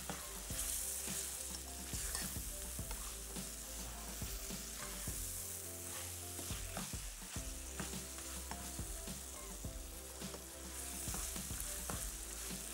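Goat meat and spice masala sizzling in a wok over a gas flame, stirred with a slotted spatula that scrapes and knocks against the pan over and over. This is the bhuna stage, frying the masala until its raw taste is cooked out.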